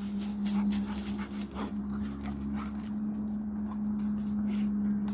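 A dog growling steadily while biting and chewing a stick, with the wood cracking and clicking in its jaws.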